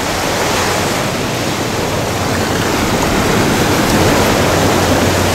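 Ocean surf breaking and washing up a sandy beach around rocks: a steady rush of water.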